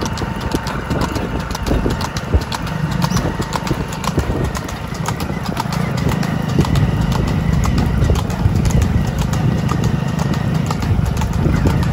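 Hooves clip-clopping on a hard surface in a quick, irregular patter, from a buffalo bull on the move, over a low rumble that gets louder about halfway through.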